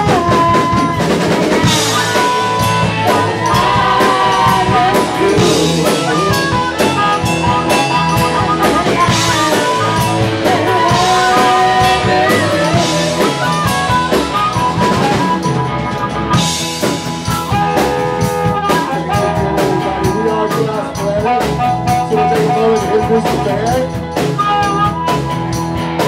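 Live blues-rock band playing an instrumental passage: harmonica playing lead lines over a steady drum-kit beat and the rest of the band.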